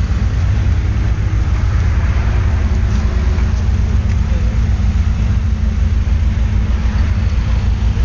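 Steady low rumble of car engines idling in a queued line of convoy cars, with faint voices.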